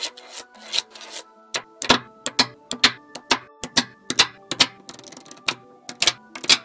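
Small neodymium magnetic balls clicking sharply as they are snapped one at a time onto a stacked block of balls, about three clicks a second at an uneven pace.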